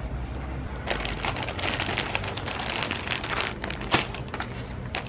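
Parcel packaging crinkling and rustling as it is torn open by hand, with one sharp click about four seconds in.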